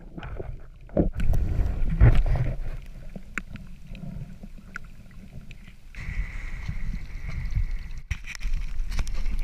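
Muffled underwater noise heard through a submerged camera as a gloved hand digs in a sandy seagrass bed and pulls out a razorfish shell: low rumbling with scattered clicks and knocks. About six seconds in it changes to the surface: water sloshing with wind on the microphone.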